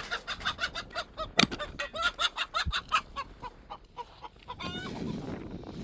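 Domestic chickens clucking in a fast run of short calls, with one longer squawk about four and a half seconds in, followed by a low shuffling rumble.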